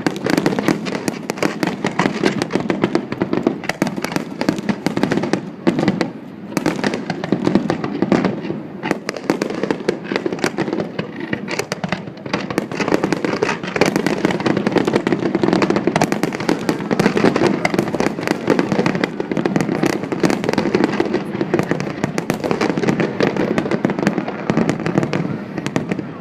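Aerial fireworks display going off in a dense, continuous barrage of bangs and crackling bursts, with brief lulls about six seconds in.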